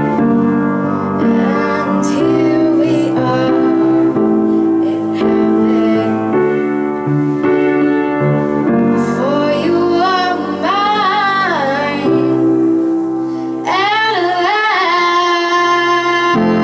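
Piano playing sustained chords while a female voice sings over it, the sung line clearest in the second half.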